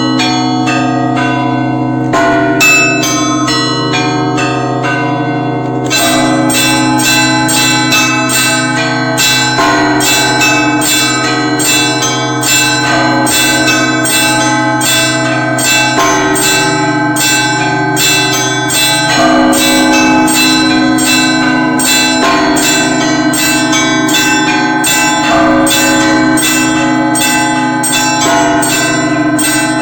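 Russian Orthodox church bells rung together in a peal: rapid chiming of the small bells over the deep, lingering hum of a large bell. About six seconds in, the chiming grows denser and brighter.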